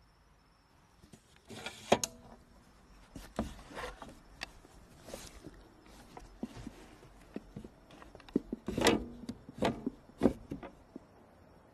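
Irregular wooden knocks, creaks and rubbing, as of something being shifted or handled on wood, with the sharpest knock about two seconds in and a cluster of louder knocks near the end.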